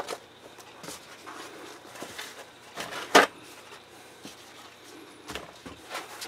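Scattered light knocks and clinks of tools and parts being handled on a workbench, with one sharper knock about three seconds in.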